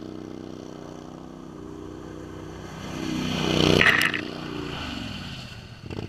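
Max 6x6 amphibious ATV engine running as the machine drives up and passes close by on ice, loudest about four seconds in, when there is a brief scraping spray of ice chips from the tyres. The engine keeps running steadily after the pass, then the sound cuts off suddenly.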